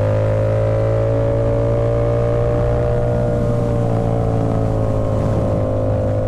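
Motorcycle engine running at a steady cruise, its note rising slightly and then easing off a little about halfway through.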